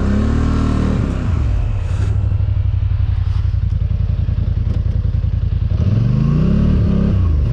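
ATV (four-wheeler) engine running steadily, revved up and back down about a second in and again near the end.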